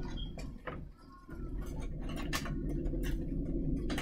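Scattered light clicks and taps, irregularly spaced, over a low steady hum.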